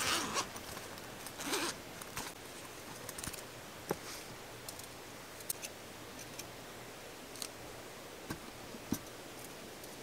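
Cooking gear and supplies being handled by hand: two short rasping swipes about half a second long near the start, then scattered light clicks and taps.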